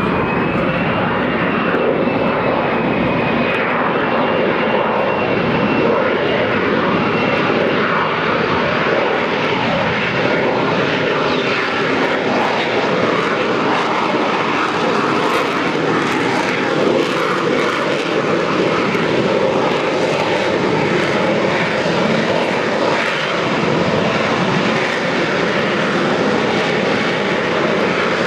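Harrier jump jet's Rolls-Royce Pegasus vectored-thrust turbofan running loud and steady as the jet hovers, with a high whine over it that rises a little about a second in and fades after about eight seconds.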